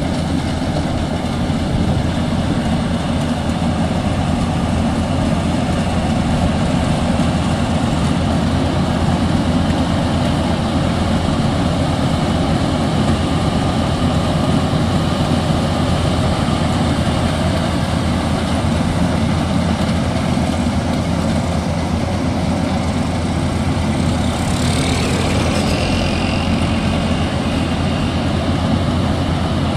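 Maxxi Bimo 102L rice combine harvester running steadily, its engine and threshing machinery making a heavy, unbroken drone.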